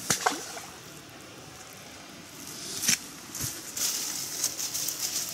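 Handling noises: a sharp knock at the start and another about three seconds in, then rustling and crackling of clothing and grass as someone moves about in the undergrowth.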